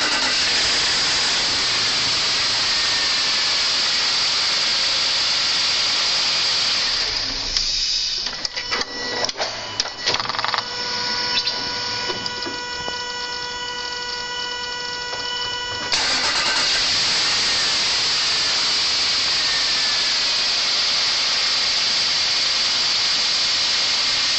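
Land Rover 4.4-litre V8 being cranked on the starter, making a strange noise, in two long cranks. Between them, starting about seven seconds in, come a few clicks and a steady whine until the second crank begins.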